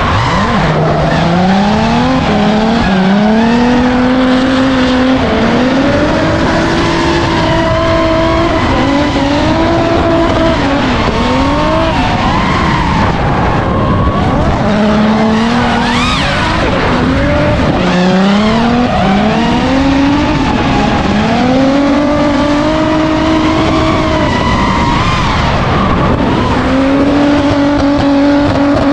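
Drift car engine revving hard in repeated pulls, its pitch climbing and holding high before dropping off, over a constant hiss of tyres sliding.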